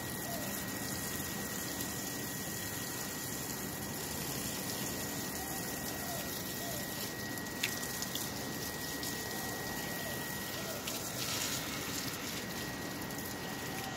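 Water from a garden hose running steadily into the soil of a large plant pot, a continuous gushing splash. A faint steady high whine sits under it.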